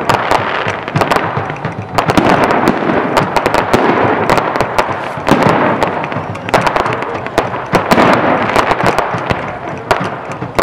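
Fireworks display: a dense, nearly continuous barrage of pops and bangs that swells and eases in waves.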